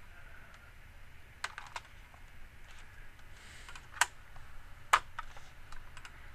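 Scattered clicks of a computer keyboard and mouse, a few sharp single clicks about a second or more apart over a faint steady background, as CAD commands are entered.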